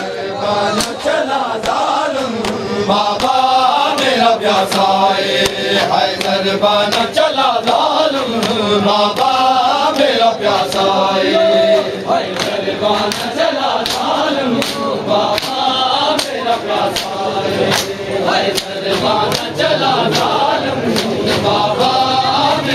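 A crowd of men chanting a noha together while beating their chests in matam, the hand slaps landing as sharp strokes in a steady beat under the voices.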